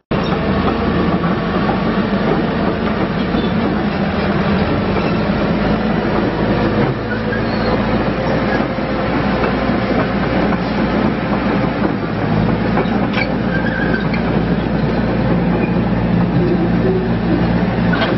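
Case 650L LGP crawler dozer driving on concrete: its diesel engine running steadily under the clatter of its steel tracks.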